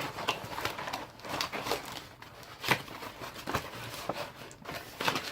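Cardboard and plastic toy packaging being handled and pulled apart: irregular crinkles and scrapes with a few sharp knocks.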